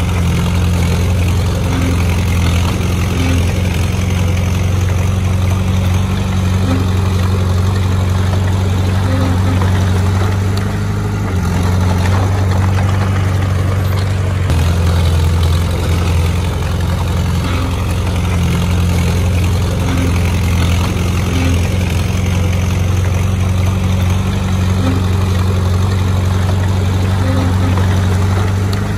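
Diesel engine of heavy earthmoving machinery running steadily at a loud, even level, with a short change in engine note about eleven seconds in.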